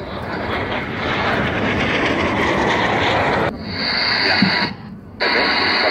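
Aermacchi MB-339 jet trainer with a single turbojet flying past low, a loud rushing jet noise that builds up. About halfway through a high steady whine joins in, and it drops out briefly near the end.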